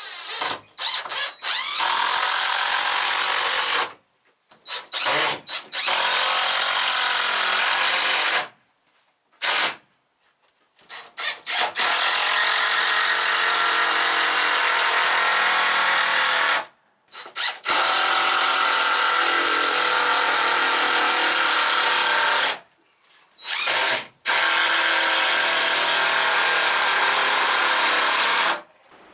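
Power drill running in long runs of several seconds, with short trigger blips and pauses between them, driving screws or boring into wood.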